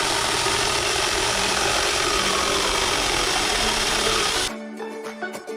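Mini chainsaw running with a dense buzzing rasp and a faint motor pitch. It cuts off suddenly about four and a half seconds in, and plucked-string music starts.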